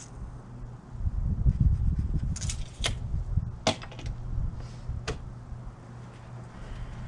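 Handling noises: a low rumble and a few separate sharp clicks and knocks, the loudest a little past halfway through.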